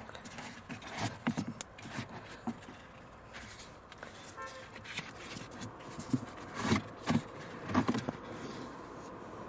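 Cabin pollen filter being worked out of its plastic housing under the glove box: scraping and rubbing with scattered knocks, the loudest a few knocks about two-thirds of the way through.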